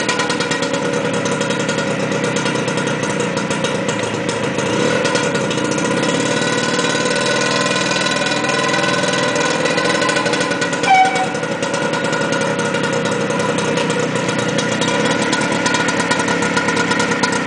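Piaggio Ape Calessino three-wheeler's small engine running steadily at low revs as it drives slowly. A short high beep sounds about eleven seconds in.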